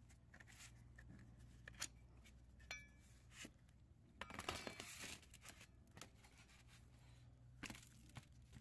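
Quiet handling noises of a starter's sheet-metal heat shield and starter motor moved about on cardboard: scattered light clicks, with a brief scraping rustle about four seconds in.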